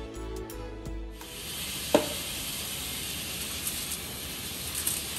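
Background music that cuts off about a second in, giving way to a steady hiss. About two seconds in comes a single sharp knock, and near the end aluminium foil rustles faintly as hands work a whole chicken on a foil-lined baking tray.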